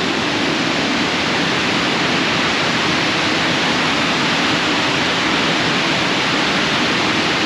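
Waterfall on the River Ure at Aysgarth Middle Falls, rushing loud and steady, in full spate after days of heavy rain.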